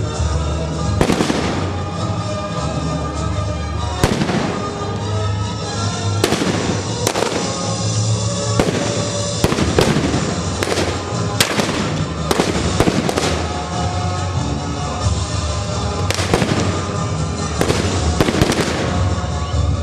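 Blank gunfire in a historical battle reenactment: well over a dozen sharp shots at uneven intervals, some in quick succession, with music playing underneath.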